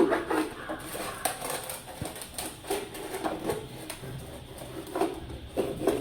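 A knife cutting and scraping a plastic bottle, with scattered small clicks and rustles of plastic being handled.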